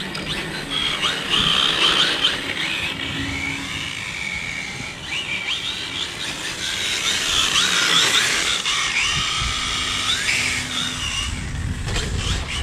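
Brushless electric motor of a 4WD RC drift car whining, rising and falling in pitch again and again as the throttle is blipped and held through the drifts.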